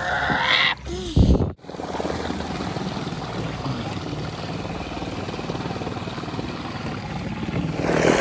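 Electric trolling motor pushing a canoe, its propeller churning the water in a steady hum, with water rushing past the hull. There is a brief loud bump about a second in, and the rush grows louder near the end.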